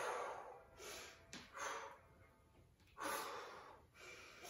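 Heavy breathing of a woman exercising: about five forceful, noisy breaths in a row, without voice, as she works through weighted sumo squats with heel raises.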